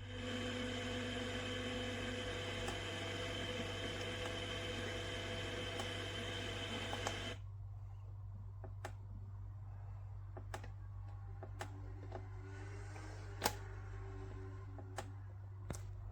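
Sunrise alarm clock's speaker playing a steady, hissy sound-machine sound with a few held tones, which cuts off suddenly about seven seconds in. After it come scattered sharp clicks over a low steady hum.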